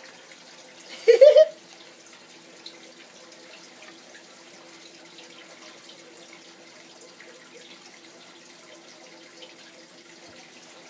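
One short loud vocal cry about a second in, rising in pitch; otherwise only a faint steady hum and low background noise.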